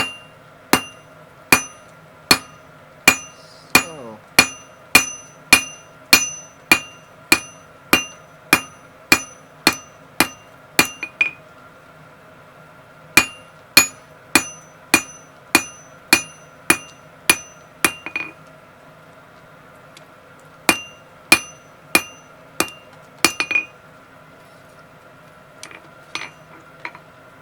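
Blacksmith's hand hammer striking hot steel bar on an anvil, flattening it with steady blows at about two a second, each with a bright ring. The hammering pauses briefly twice, and ends with a few light taps.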